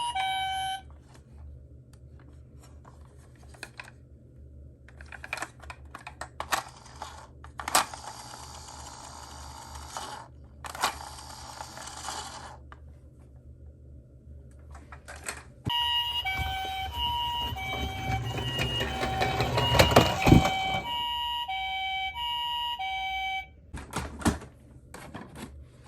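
Toy cars rattling and clicking as they roll on a slope. About sixteen seconds in, a two-tone hi-lo ambulance-style siren starts, alternating between two pitches about once a second over louder rattling, and stops about eight seconds later. A shorter burst of the same siren ends just under a second in.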